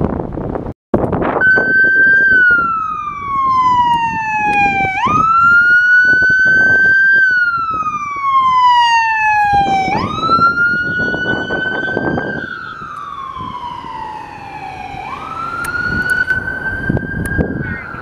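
Emergency vehicle's electronic siren on a wail: the pitch climbs quickly, then slides slowly down, about every five seconds, over vehicle noise. It starts about a second and a half in.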